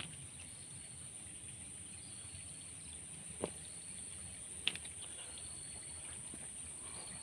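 Outdoor ambience: a steady high-pitched insect drone with faint chirps over low background noise, broken by two short sharp clicks about three and a half and four and a half seconds in.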